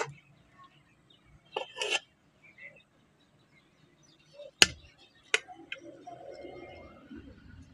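Metal slotted serving spoon clinking against a plate of rice several times, with the sharpest clink about four and a half seconds in.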